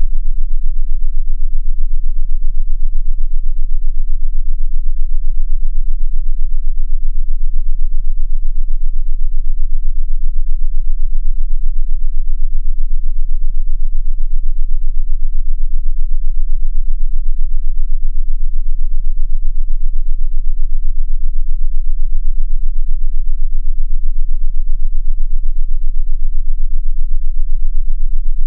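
A loud, steady, very deep synthesized tone that does not change, with faint higher overtones above it: a sound-therapy 'frequency' tone meant for headphones.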